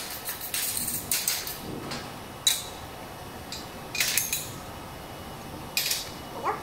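Square aluminium tube pieces being set down and knocked into place on a slatted steel welding table: a string of sharp metallic clinks and knocks, about six, spaced a second or so apart.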